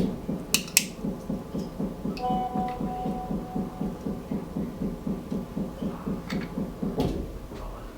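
The motorised blade remover of an OM518 Plus LCD repair machine running, a rhythmic pulsing at about five beats a second as it drives the blade slowly through an iPhone LCD's polarizer. There are two sharp clicks near the start, and the pulsing stops about seven seconds in.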